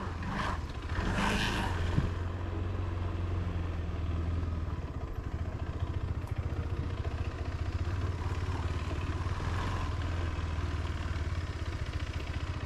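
Motorcycle engine running steadily, with a brief hiss about a second in.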